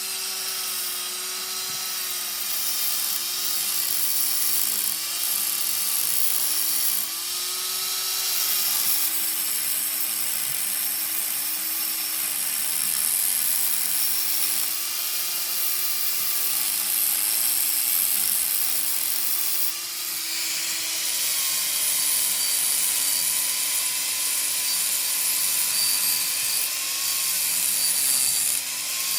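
A power tool's motor running steadily under load, its pitch dipping and recovering slightly several times, with a loud high hiss over it that changes in strength a few times.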